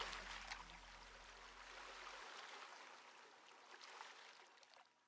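Faint running water like a trickling stream, with scattered small drips and splashes over an airy hiss, fading out toward the end. A low hum underneath stops about two seconds in.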